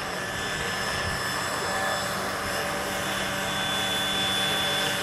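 Large-scale electric RC model Bell 430 helicopter hovering low, its electric drive whining in several steady high tones over the even rush of the rotors, growing slightly louder near the end.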